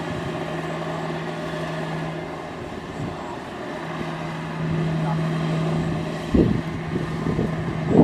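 Kubota combine harvester's diesel engine running with a steady hum, growing a little louder past the middle, with one dull thump about six and a half seconds in.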